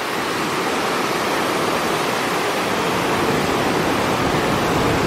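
Steady rush of fast-flowing river water, growing slightly louder.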